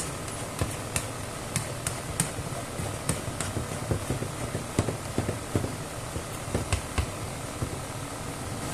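Omelette frying in a nonstick pan: a low sizzle with scattered pops and ticks. A slotted plastic spatula scrapes and taps in the pan as it moves the setting egg about.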